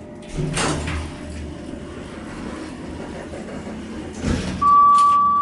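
Elevator doors sliding open at a landing over the car's steady hum. Near the end comes a steady electronic beep of about a second, a single clear tone.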